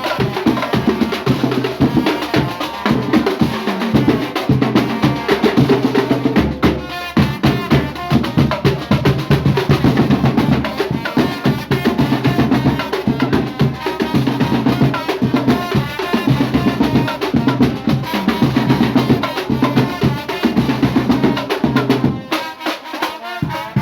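Loud music with a drum beat and heavy bass played over a party sound system during a sound check; the bass drops out briefly near the end.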